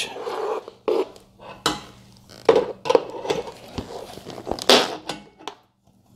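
Open-end steel wrench on the hex of a threaded levelling foot of a quilting-frame leg, clinking and scraping as it is turned and refitted, about seven irregular metallic clinks. The foot is being screwed round to raise the leg and level the frame's carriage track.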